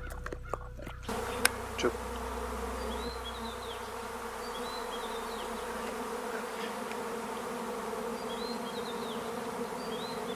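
Honeybees buzzing in a steady drone, with a few faint short high chirps now and then.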